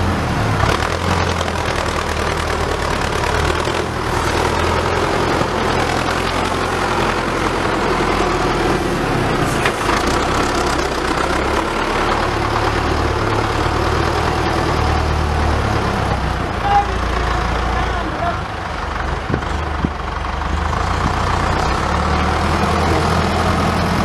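Farm tractor engine running steadily as the tractor works a front dozer blade through loose soil, its low note rising and falling with the load and throttle.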